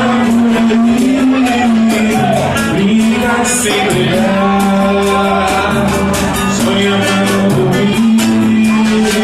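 Brazilian popular music (MPB) group playing and singing: a vocal melody over plucked strings and a steady, busy percussion beat.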